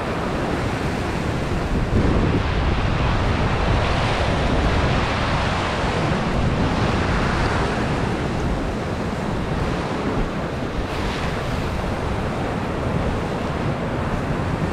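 Sea waves washing and breaking over rocks, a steady rushing that swells louder every few seconds, with wind buffeting the microphone.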